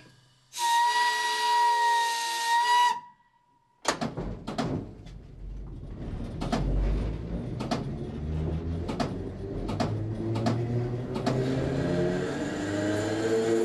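Historic Berlin S-Bahn electric train: one steady whistle blast of about two seconds from the cab's warning whistle, then the train pulls away with regular clicks and the whine of its traction motors rising in pitch as it accelerates.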